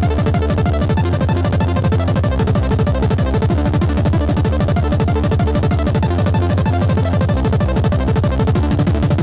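Loud electronic dance music with a fast, steady beat.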